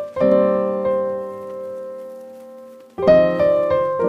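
Background piano music: a chord rings out and slowly fades, then new chords come in about three seconds in.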